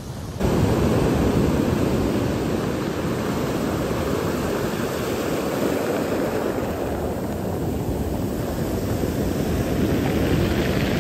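Sea surf washing up a pebble beach, foaming over the stones around the feet: a steady wash of water that swells slightly near the end.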